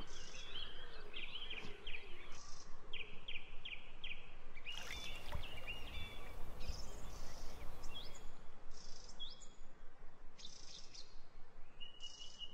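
Small birds singing, with short chirps and trills repeated over a steady outdoor background hiss. For a few seconds in the middle, a rushing noise with a low rumble rises under the birdsong.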